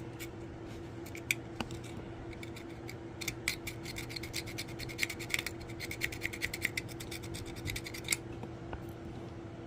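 Multi-tool file blade scraping the metal battery terminals of a handheld CB radio in a run of short, quick strokes, cleaning them so the batteries can make contact.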